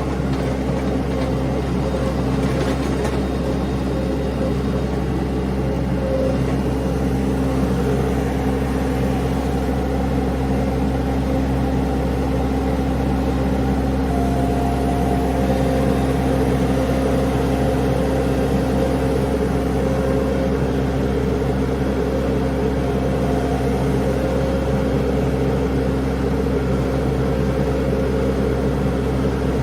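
An engine running steadily, a constant hum with several held tones and no rise or fall in loudness.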